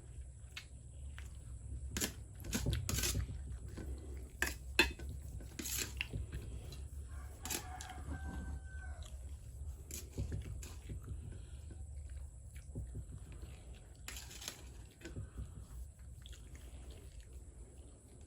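Eating sounds: chewing fried noodles, with scattered sharp clicks of cutlery against a plate, the loudest just under five seconds in.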